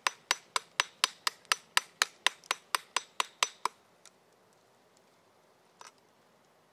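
Hammer striking metal in quick, even blows, about four a second, with a sharp ringing click on each. The blows stop about three and a half seconds in, and one faint tap follows near the end.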